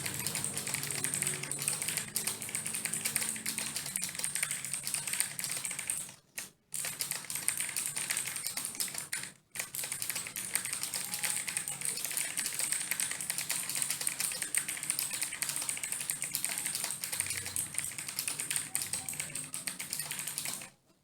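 Fast, continuous typing on an Imperion Mech 7 RGB mechanical keyboard with Kailh Blue clicky switches: a dense stream of sharp clicks. It breaks off briefly about six seconds in and again at about nine and a half seconds, then stops right at the end.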